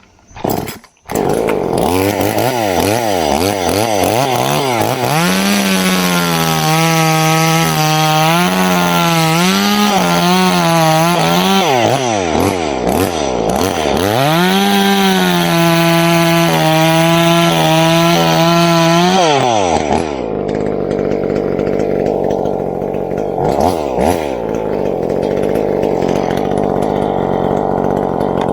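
Two-stroke chainsaw starting up about a second in, then held at high revs twice for several seconds each with a brief dip between. It then drops to a lower, uneven running speed for the last third.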